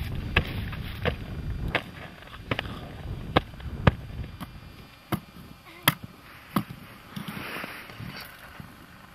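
A series of sharp knocks or cracks, about ten at uneven intervals of roughly half a second to a second, over a low rumble during the first two seconds.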